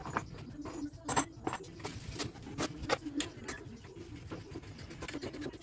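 Irregular small clicks and knocks of hand tools and plumbing fittings being handled.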